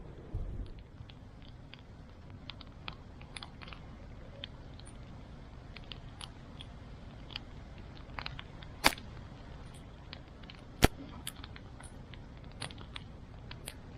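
Wood fire crackling: scattered small irregular pops, with two sharp, loud snaps about nine and eleven seconds in.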